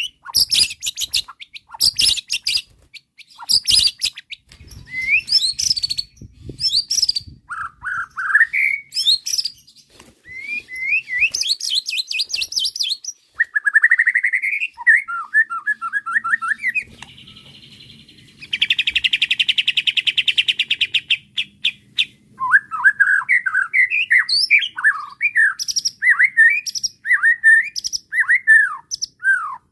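White-rumped shama singing a varied song of whistled phrases, sweeping up and down, mixed with quick high notes. Partway through comes a long harsh buzzing rattle, lasting about five seconds, before the whistled phrases resume.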